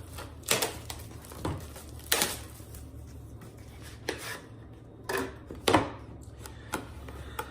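Handling of cardboard trading-card packaging as a sealed case and box are opened: about seven irregular knocks and clicks with rustling between them, over a low steady hum.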